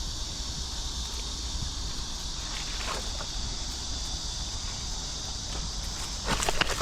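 Footsteps rustling through vegetation: a faint one about three seconds in and a louder few near the end, over a steady high hiss and a low rumble.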